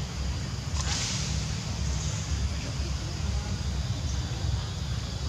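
Outdoor background: a steady low rumble, with a brief rustling hiss about a second in.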